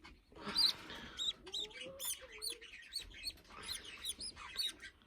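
Budgerigars chirping: quick, high, short chirps about three a second, with a brief rustle about half a second in.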